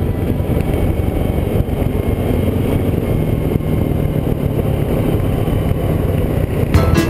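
An off-road vehicle's engine running, heard as a rough, uneven rumble. Music starts up again near the end.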